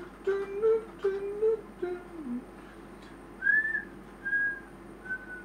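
A man humming a tune under his breath, then whistling three short notes in the second half, with a few faint clicks from wires being handled.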